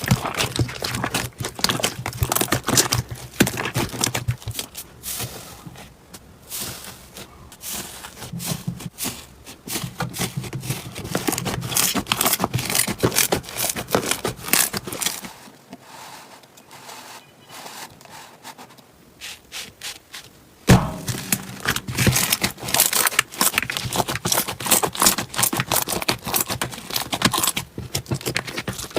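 Slime being squished, pressed and poked by hand, making a dense run of sticky clicks, pops and crackles. It goes quieter for a few seconds past the middle, then comes one sharp snap about 21 seconds in.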